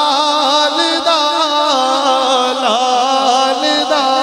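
Naat singing: a voice carrying a long, unbroken melodic line with wavering, ornamented pitch.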